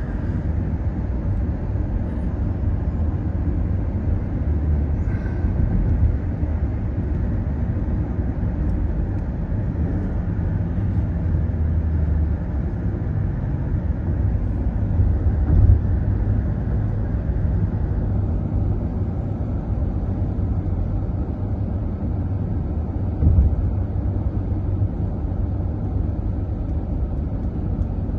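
Moving car's road and engine noise: a steady low rumble that swells briefly twice, once about halfway and once later on.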